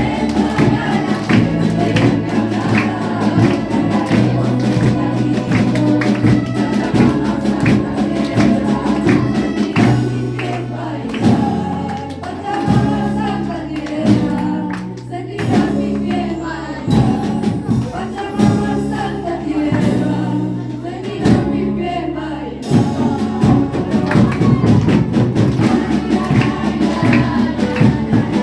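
Live ensemble music with voices singing over a steady beat and sustained bass notes; the texture thins to a lighter passage partway through, then the full group comes back in near the end.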